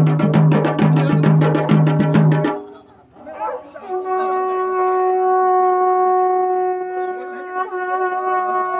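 Fast, even drumming that stops about two and a half seconds in. Then long straight horns with flared bells sound one long held note, opening with a short rising slide.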